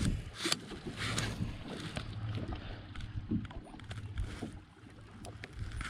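Sounds aboard a small fishing boat: a low steady hum with scattered light knocks and short bursts of hiss, the hum dropping away about four and a half seconds in.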